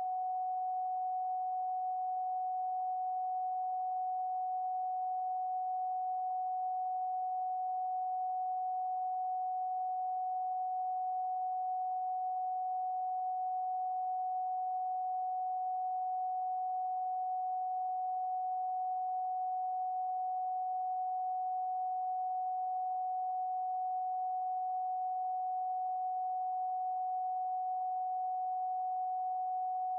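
Steady electronic sine-wave tone, held unchanging throughout, with a fainter very high steady tone above it and a soft hiss around the main pitch: a meditation 'frequency' track.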